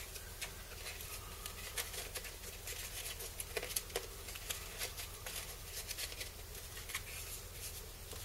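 Paper and cellophane packets rustling as they are handled and lifted out of a tissue-lined cardboard box, with many small, irregular clicks and scrapes.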